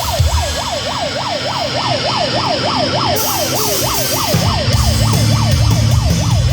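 A siren-like yelp sweeping quickly up and down, about four times a second, over loud live rock music. The heavy low bass thins out and then comes back in hard about four seconds in.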